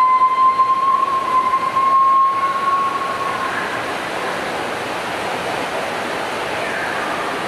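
Steady rushing of falling water from a jungle waterfall or stream. Over the first three seconds a steady high tone sounds above it and then fades.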